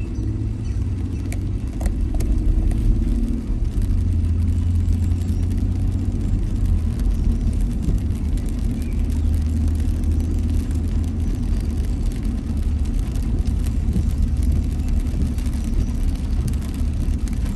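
A car driving, heard from inside the cabin: a steady low rumble of engine and tyres on wet road, with light scattered ticks of rain on the windscreen.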